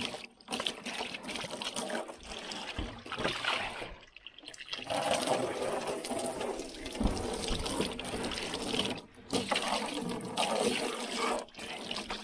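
Water running into a tub and splashing as it fills, breaking off briefly twice.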